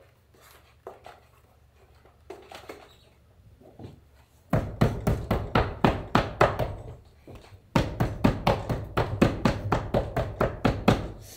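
Rapid tapping strokes while a leather saddle seat is worked down onto the saddle to compress a wrinkle. They come in two quick runs of about five or six a second, starting about four and a half seconds in, after a few seconds of faint handling sounds.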